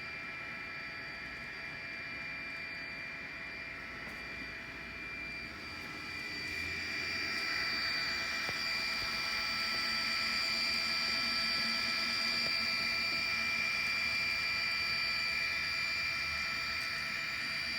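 N scale model freight train running on its track: a steady high motor whine over a light rolling hiss, growing louder about six seconds in.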